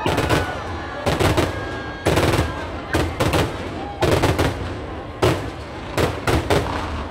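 Fireworks display: aerial shells bursting with sharp bangs in quick succession, many coming in tight clusters of two or three about every second.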